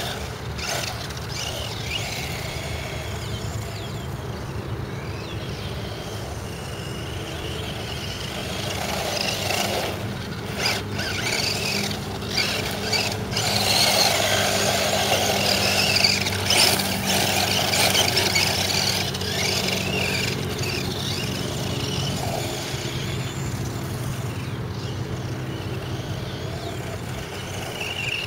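Electric 1/10-scale RC desert buggy driving on loose dirt, its motor whining up and down in pitch with the throttle. The tyres throw up dirt. The sound is loudest in the middle, as the buggy comes close.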